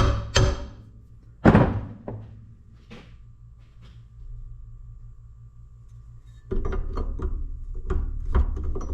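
Hammer taps seating the oiled spool of a Farmall two-way hydraulic valve back into its bore, ending in one heavy knock about a second and a half in, followed by a few lighter knocks. From about two thirds of the way through, metal parts clatter as they are handled.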